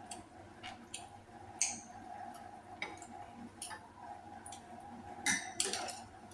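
A person eating: wet chewing and lip smacks with scattered small clicks of utensils against dishes, the loudest cluster about five seconds in, over a faint steady hum.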